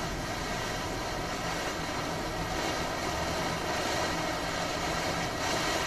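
Ground firework fountain burning with a steady, even hiss.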